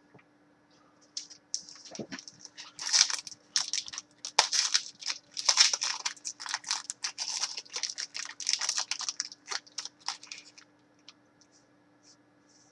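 Thin plastic card packaging crinkling and crackling as it is handled, in a dense, irregular run of crackles that starts about a second in and stops about ten seconds in.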